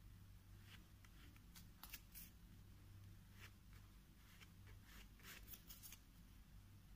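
Faint, short scrapes of a plastic card's edge dragged across acrylic paint on canvas paper, a handful of strokes scattered through, over a low steady hum.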